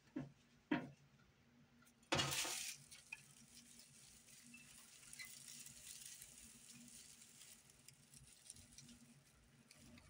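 Dry grass tinder rustling and crackling as it is handled and folded around a glowing char-cloth ember, with a louder rustle a little over two seconds in and light crackles after it.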